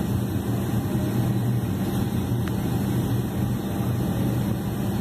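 Boeing 757 jet engines idling, heard from inside the cabin over the wing: a steady low drone with a hum and a haze of cabin air noise.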